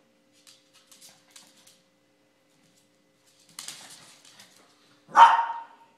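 A small dog barks once, loud and short, about five seconds in. Before it come light clicks and a brief scuffle of paws on a hardwood floor as the dogs play.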